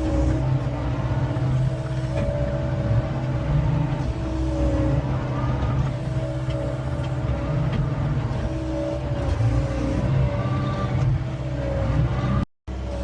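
John Deere 333E skid steer's diesel engine running steadily under hydraulic load as it drives the log splitter, with a whine that wavers slightly in pitch. The sound cuts out for a moment near the end.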